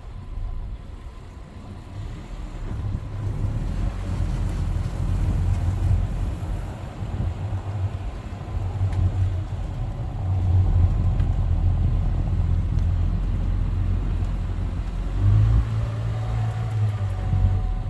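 A vehicle engine running in low rumbling surges that rise and ease as it drives through deep snow, the wheels fighting for grip with the traction control cutting in a lot.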